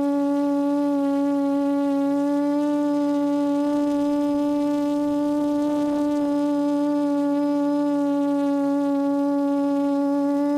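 A QAV400 quadcopter's four Lumenier 1100kv brushless motors and APC 8x4.5 props humming steadily in a hover, a constant, unwavering tone heard close up from the camera on the airframe. A faint rougher sound joins for about two seconds in the middle.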